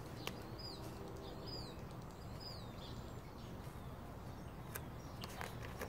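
Quiet outdoor ambience with a small bird giving short falling chirps about a second apart, three times in the first half. A few light clicks near the end.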